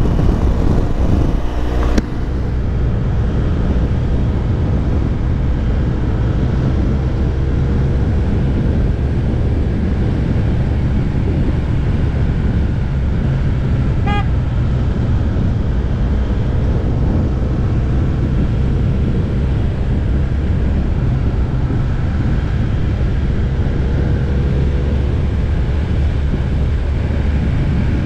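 Motorcycle engine running at a steady road speed with wind noise, its pitch drifting slightly as speed changes. A short pitched toot about halfway through.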